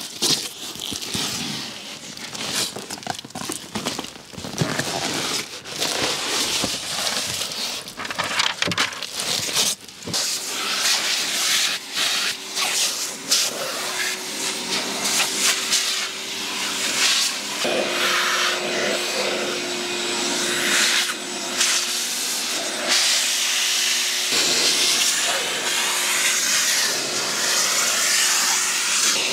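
Irregular rubbing and clicking, then from about ten seconds in a motor-driven air tool running steadily, a hum over a hiss of rushing air, its pitch dropping slightly twice.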